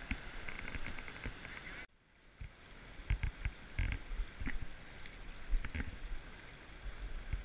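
River water rushing and sloshing close to the microphone, with scattered clicks and low thumps of handling. The sound drops out abruptly about two seconds in, then the water noise resumes.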